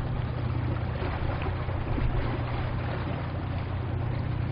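Stockholm-class patrol ship underway, its engines giving a steady low drone under a wash of water and wind noise.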